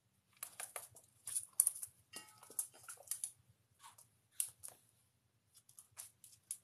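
Old wire fox terrier eating dry kibble from a steel bowl: irregular clusters of crisp crunching and chewing with short pauses between them.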